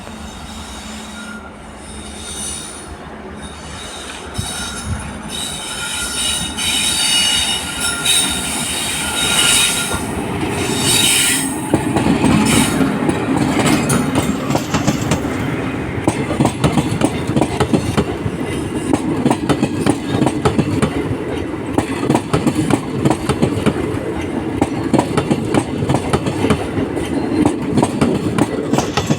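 Passenger express train running through a station on the loop line without stopping: a high-pitched wheel squeal over a growing rumble as it comes in, then from about twelve seconds in a steady fast clickety-clack of coach wheels over the rail joints with a heavy rumble as the coaches pass.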